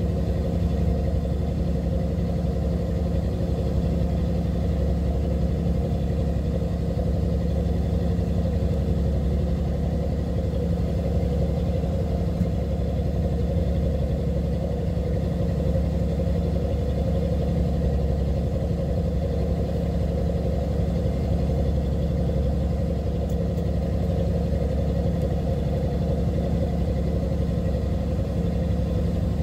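A fishing boat's engine running steadily, an even low drone that does not change.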